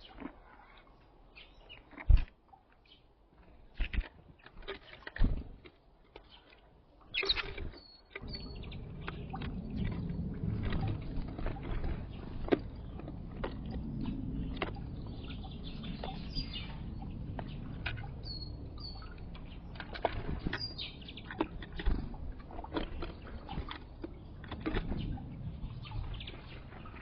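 Small birds at a window feeder: sharp taps and knocks of pecking and landing, with short high chirps now and then. About a third of the way in, a steady low rumble starts beneath them.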